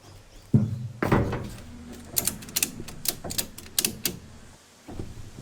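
A heavy thump, then a knock, followed by a quick run of sharp clicks and taps.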